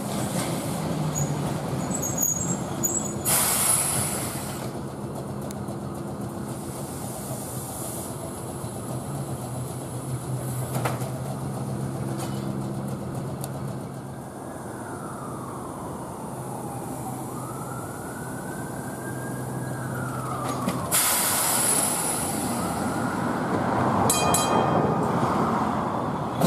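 Vintage Baltimore electric streetcar No. 4533 moving slowly along the track. A steady low hum comes from its running gear, and a whine falls and then rises in pitch in the middle. There are two short bursts of air hiss, a few seconds in and again near the end.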